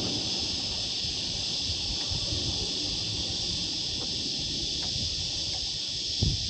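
Steady high-pitched drone of a cicada chorus from the wooded riverbanks, with a low knock near the end.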